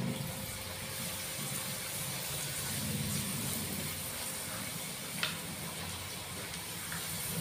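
Hot oil sizzling steadily in a wok as opak crackers deep-fry, with one brief click about five seconds in.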